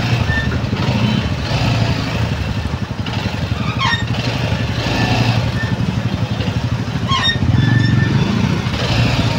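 Motorcycle engine running at low speed in slow traffic, a steady low rumble heard from the rider's seat, with short falling squeaks about four seconds in and again near seven.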